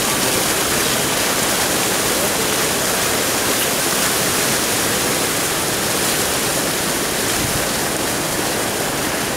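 Steady rushing of a flood-swollen creek running fast and high.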